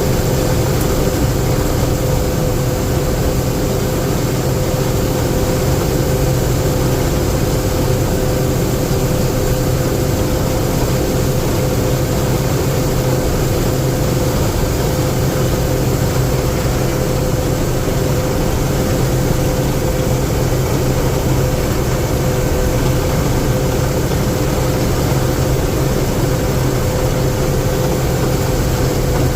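Combine harvester running steadily, a constant engine hum that holds the same pitch throughout.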